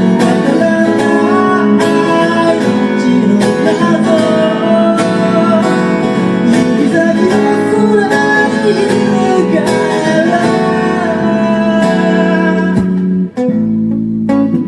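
Live band music with guitars playing throughout, dropping out briefly near the end before a sparser passage picks up.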